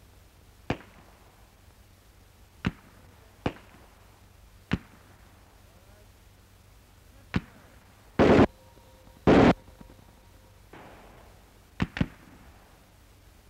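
Machine guns firing on a 1936 film soundtrack: five scattered single shots, then two short automatic bursts about a second apart, the loudest and clipped, then a quick pair of shots near the end.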